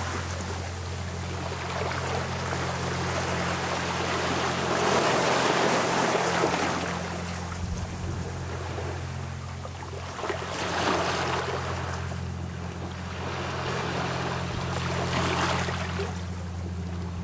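Small waves washing in over a pebble and stone beach, the surf swelling and falling back about every five seconds, with three clear washes. A steady low hum runs underneath.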